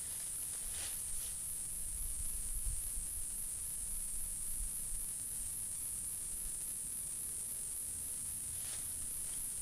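Continuous high-pitched chirring of insects, pulsing evenly, over a faint low rumble, with a few brief soft rustles about a second in and near the end.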